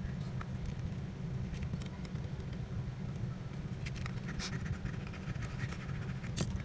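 Thin hand tool scraping in short, faint strokes along the edge of a phone's metal-and-plastic middle frame, over a steady low hum.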